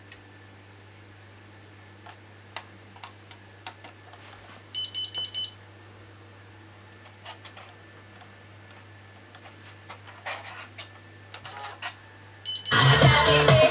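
Toyota (Matsushita) double-DIN car stereo being operated: scattered clicks of its buttons and mechanism over a low steady hum, four short high beeps about five seconds in, then loud electronic dance music starts playing through it near the end.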